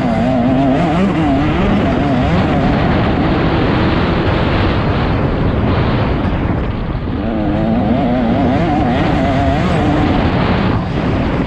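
Motocross dirt bike engine running hard at race pace, its pitch rising and falling constantly as the throttle is worked, with a short dip in revs about seven seconds in.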